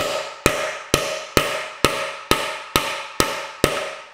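Hammer striking the axle bolt of a Profile Elite BMX front hub in a steady series of nine sharp, ringing metal blows, about two a second. The blows drive the axle through to press the bearing and cone spacer out of the far side of the hub shell.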